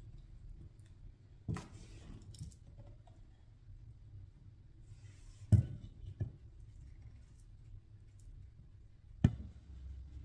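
A few scattered sharp clicks and knocks over a low steady hum. The loudest knock comes about five and a half seconds in, with another near the end.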